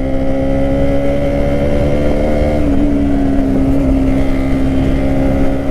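Bajaj Pulsar NS200 single-cylinder motorcycle engine running at a steady cruising speed under way, its note stepping up slightly about halfway through and then holding, over a constant low rumble of wind and road.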